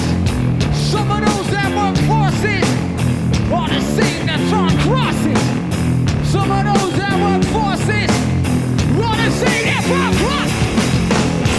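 Rock music with a driving drum beat, bass and electric guitar.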